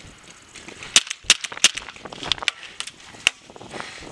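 Paintball markers firing: a handful of sharp, irregularly spaced pops, three close together about a second in and another strong one near the end.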